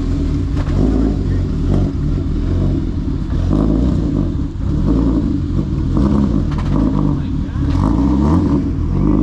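Car engine revving up and dropping back several times as a manual car is driven and shifted, its clutch taking up very high.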